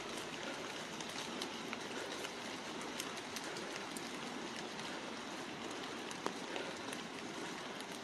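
Steady rain falling on wet leaves and foliage, a constant hiss with scattered sharper drop hits.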